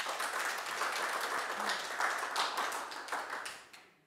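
Audience applauding, a dense patter of many hands clapping that fades away in the last second before cutting off.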